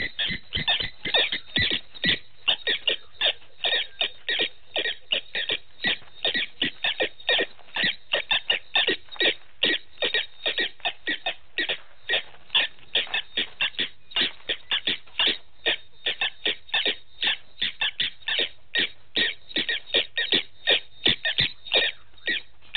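A long, rapid series of short chirping animal calls, about four a second, keeping up steadily without a break.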